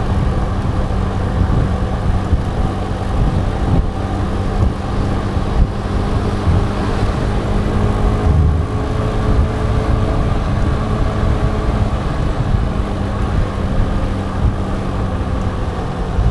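Motor scooter riding at a steady speed: a steady engine hum under a heavy low rumble of wind noise on the action camera's microphone, with road traffic around it.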